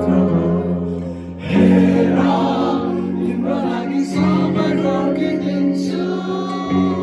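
Live band music with many voices singing together, held notes over a steady instrumental backing; the sound swells a second and a half in.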